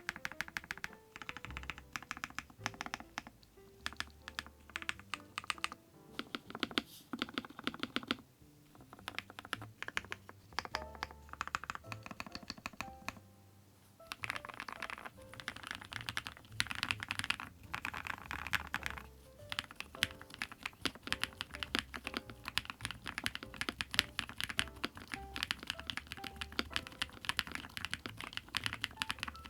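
Fast typing on an IQUNIX ZONEX 75, a gasket-mounted 75% aluminium-case mechanical keyboard: a dense run of key clacks with a short pause about halfway through, over soft background music.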